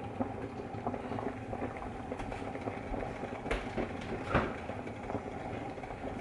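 Steady sizzling and bubbling of food cooking on the stove, with small clicks throughout. A few sharper knocks come around three and a half to four and a half seconds in, as a refrigerator door is pulled open.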